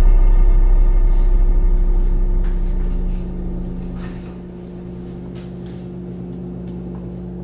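Low, sustained drone of ominous film-score music with held higher tones above it, loud at first and fading over the first four or five seconds, then holding steady and quieter.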